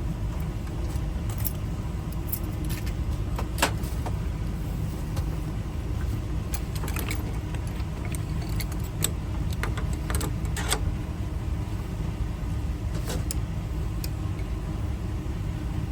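Steady low rumble of a vehicle engine running, with occasional sharp clicks and clinks scattered through it.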